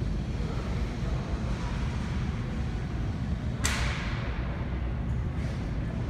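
Steady low rumble with a single sharp bang a little past halfway, whose echo trails off briefly through the large, empty store.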